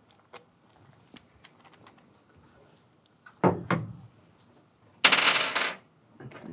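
Small clicks and clinks of metal engine parts and tools being handled, with two louder knocks about three and a half seconds in and a short, loud noisy burst about five seconds in.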